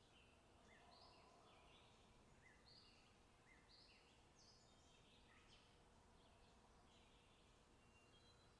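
Faint chirps and calls of small songbirds: many short, high notes one after another over a soft background hiss.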